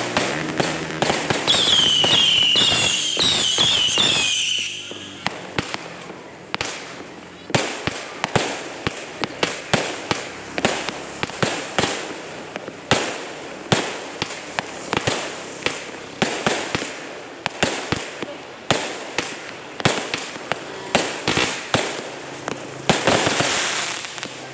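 Aerial fireworks going off. First a dense rush with high falling whistles, then a steady run of sharp bangs, a little over one a second, from a repeating shot. Near the end comes a thicker burst of crackle.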